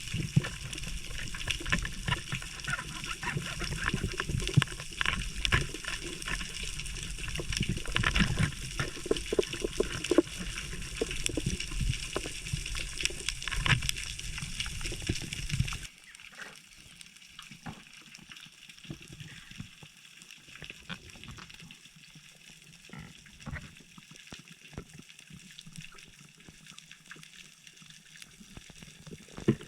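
Water noise on a spearfisher's camera: splashing and sloshing with many short crackling clicks. About halfway through it drops suddenly to a quieter stretch with scattered clicks.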